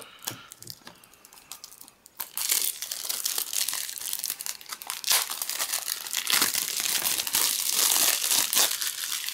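Plastic shrink-wrap on a Blu-ray case being picked at with a few light clicks, then torn and peeled off with dense crinkling and crackling from about two seconds in.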